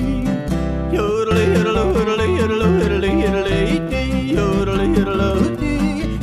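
Country music soundtrack: a song with guitar and bass accompaniment under a wavering lead melody line.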